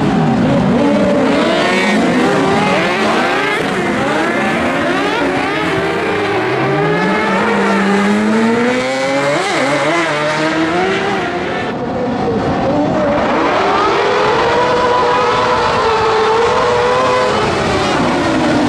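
Crosskart engines revving hard, several at once, with many pitches rising and falling together as the karts accelerate and shift through the gears.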